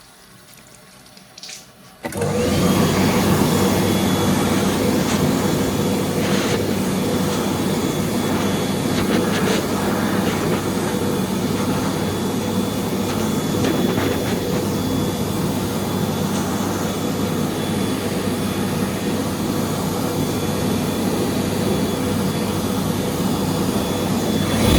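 A push-button Newlec hand dryer starts about two seconds in, after a faint click, and runs steadily. It gives a loud fan whir with a constant hum and a faint high whine.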